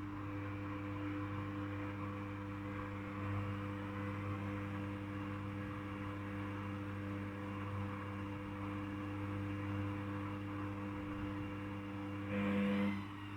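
Samsung WF0600NCY front-loading washing machine running with a steady motor hum, and a brief louder surge near the end.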